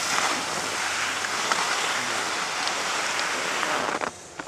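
Rushing noise of skiing downhill: skis sliding over packed snow, with wind on the microphone. About four seconds in it stops abruptly as the skier halts, leaving a few short clicks.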